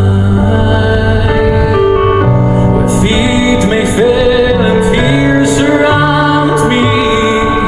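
Background music with sustained notes and a soft singing voice.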